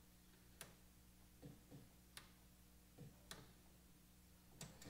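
Faint, irregular plastic clicks and light knocks from hands working inside an HP LaserJet M525 laser printer to release and pull out the transfer roller, over a low steady hum.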